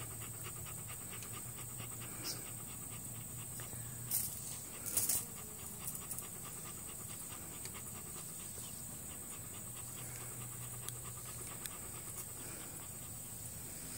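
A dog panting quickly and steadily, with a faint low hum underneath and two brief knocks about four and five seconds in.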